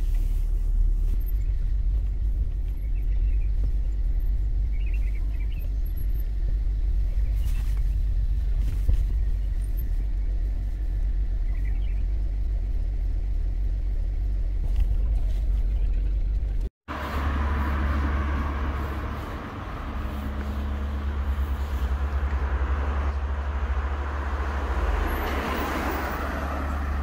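Steady low rumble of a Hyundai Veracruz SUV's engine and road noise, heard inside the cabin while driving. After a sudden cut about 17 seconds in, outdoor street noise follows, with a van driving close past near the end.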